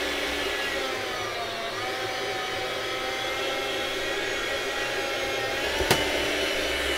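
Chef's Choice 609 electric meat slicer's motor and blade running steadily while a log of hard salami is pushed through to cut one slice at thickness setting 10. The pitch sags briefly between one and two seconds in, and there is a single sharp click near the end.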